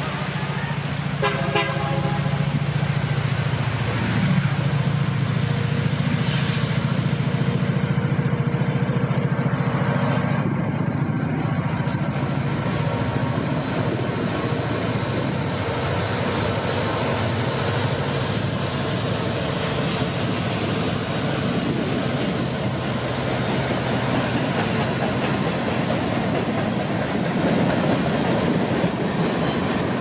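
A diesel freight train led by four EMD SD70 locomotives and a CN SD75 passes close. The locomotives' engines hum steadily at first, with a brief horn toot about a second in. From about four seconds in, the steady noise of the train's wheels on the rails takes over as the train rolls by.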